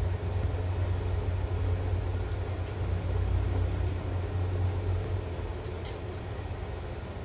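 A steady low rumble that eases off about five seconds in, with a few faint clicks over it.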